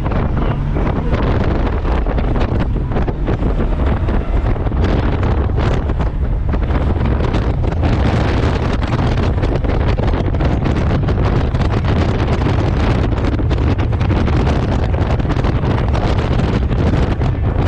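Loud, steady wind buffeting the microphone of a rider on a moving Honda Gold Wing motorcycle, with a low motorcycle drone underneath.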